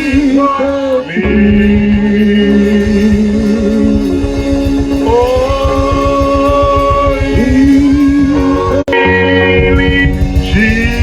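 Live gospel worship song: a voice holds long, gliding notes over steady band accompaniment. There is a momentary dropout about nine seconds in.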